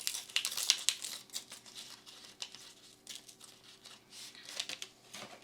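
Crinkling and rustling of a foil trading-card booster pack wrapper and cards being handled, with quick sharp ticks, busiest in the first second.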